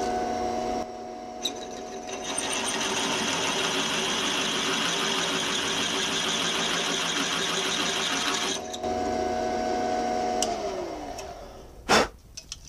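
Drilling machine running, with a drill bit cutting into a cast-iron hand wheel for about six seconds, a steady hiss of cutting over the motor's hum. Near the end the motor is switched off and winds down, falling in pitch, and a single knock follows.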